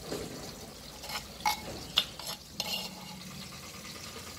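A steel spoon scraping and clinking against a clay bowl and a small bowl as pounded chopped onion is scooped out, with a few sharp clinks around the middle.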